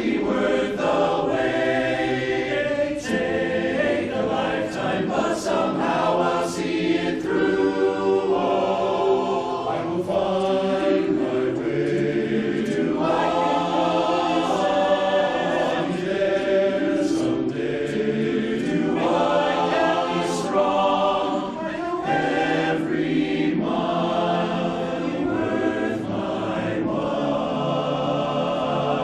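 Barbershop chorus singing a cappella: many men's voices holding close, sustained chords that shift and swell from phrase to phrase.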